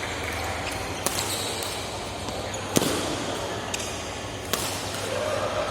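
Basketball bouncing on a court floor: a few separate, irregular thuds, the loudest about halfway, over the steady background noise of an indoor gym.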